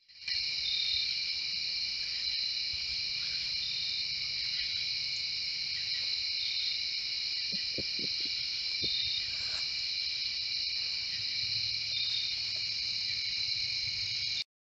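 Night chorus of crickets and other insects: a steady shrill trilling in several layered pitches, with a short chirp repeating about every three seconds. A few faint short low sounds come about eight seconds in.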